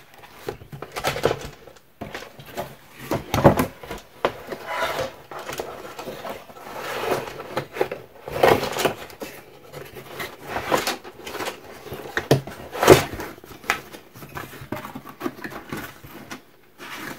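Paper and plastic craft items being handled: irregular rustles and light clatters, louder about three and a half, eight and a half and thirteen seconds in.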